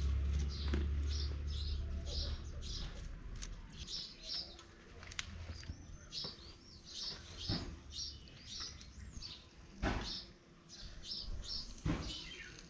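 A bird calling over and over in short, high chirps, about two a second, some of them sliding in pitch. A low rumble fills the first second or two, and a few sharp knocks come now and then.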